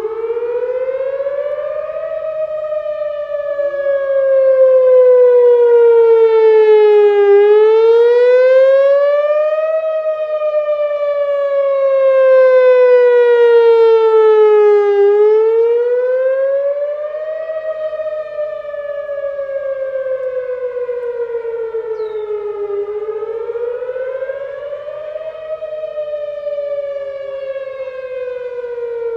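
Whelen WPS 3016 electronic outdoor warning siren sounding its wail: a loud tone that slides slowly up in pitch, then longer and slower back down, over and over, with the volume swelling and fading as it goes.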